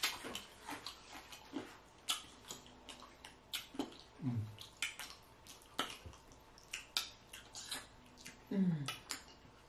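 Close-miked chewing and lip-smacking of fried chicken and waffles: irregular wet clicks and smacks. Two short hums that fall in pitch come about four seconds in and again near the end.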